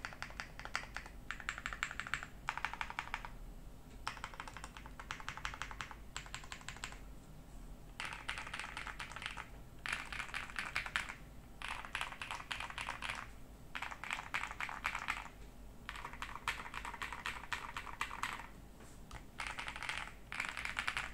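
Typing on an Ajazz AK820 Pro mechanical keyboard fitted with Ajazz Gift switches: rapid key clacks in runs of a second or two, broken by short pauses.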